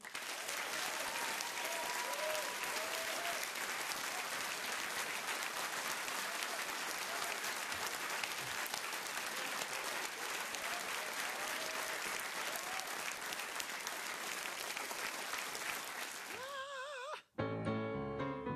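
Studio audience applauding, with a few whoops and cheers in it. The applause cuts off suddenly about a second before the end, and a grand piano starts playing chords.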